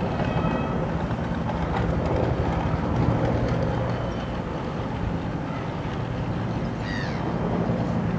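Distant helicopter flying over the mountain: a steady low rotor drone.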